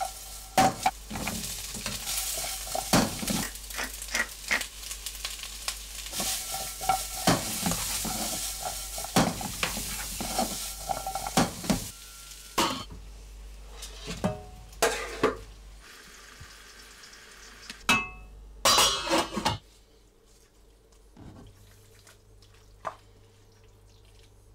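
Sliced onions sizzling in oil in a frying pan while a spatula stirs and scrapes them, with frequent knocks against the pan. After about twelve seconds the sizzle dies down; a few louder clatters follow, then it goes almost quiet.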